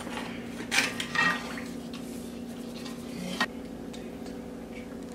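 Metal spoons clinking against cooking pots as seasoning is stirred into broth: a few sharp clinks over a steady low hum.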